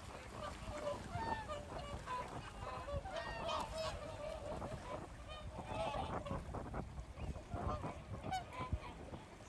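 A flock of swans calling, many short overlapping calls one over another.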